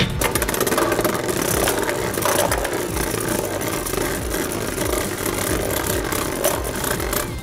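Two Beyblade Burst spinning tops, Right Artemis and Hell Salamander, running on the floor of a plastic stadium. They make a steady whirring, grinding rattle, broken by frequent small clicks as they knock against each other.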